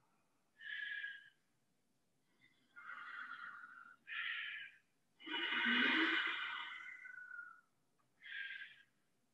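Ujjayi breathing: slow, audible breaths drawn through a narrowed throat, about five in a row with short pauses between them. The longest and loudest comes a little past the middle.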